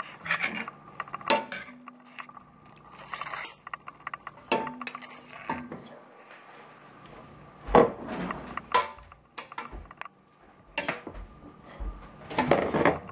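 Metal fork scraping and clinking against a stainless steel stockpot as spaghetti is tossed quickly with raw egg yolk. Irregular clinks and scrapes, loudest about eight seconds in and again near the end.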